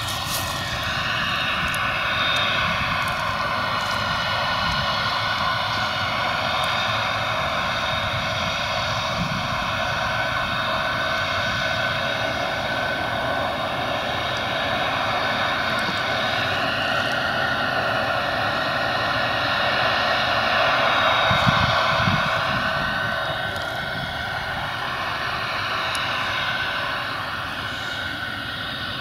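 Claas Lexion combine harvester running steadily at work harvesting grain: a continuous engine and machinery drone with a high whine. It grows loudest about three quarters of the way through as the machine passes, then eases off.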